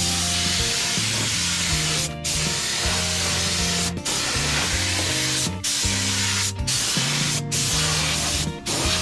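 Paint spraying: a steady spray hiss that stops briefly every one to two seconds between passes, over background music.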